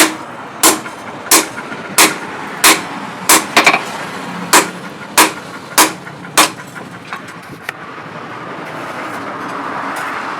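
Hand hammer striking a knife blade on an anvil while it is forged, about ten sharp blows at a steady pace of roughly one and a half a second, stopping about two-thirds of the way through. A steady hiss runs underneath.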